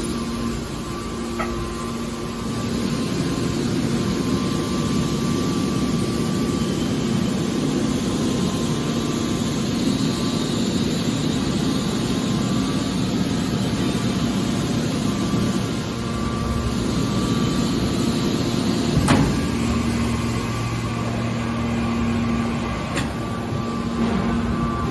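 Hydraulic scrap metal baler shear running: a steady machine hum from its hydraulic power unit, with a sharp metallic knock about 19 seconds in and a couple more near the end.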